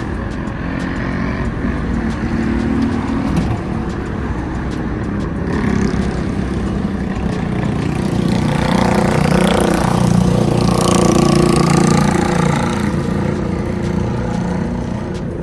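Street traffic, with one motor vehicle passing close by: it swells from about halfway through, is loudest about eleven seconds in, then fades.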